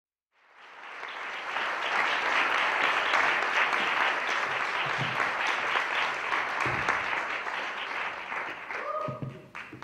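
Audience applauding, with many hands clapping: it swells up over the first second or so, holds steady, and dies down near the end.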